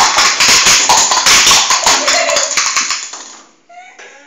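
A stack of cups knocked over, clattering in a rapid run of knocks and rattles that dies away about three seconds in.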